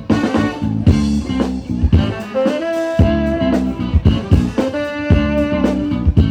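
Live band playing an instrumental stretch: long held horn notes over electric guitar, bass and a steady drum beat.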